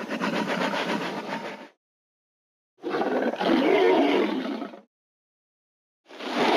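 Dinosaur roar sound effects: three long rasping roars with complete silence between them, the first dying away about two seconds in, the second lasting about two seconds from around three seconds in, and the third starting near the end.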